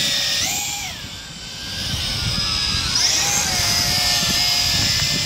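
Tarantula X6 quadcopter's electric motors and propellers whining overhead, the pitch swinging up and down twice as it holds its hover. It dips in loudness about a second in.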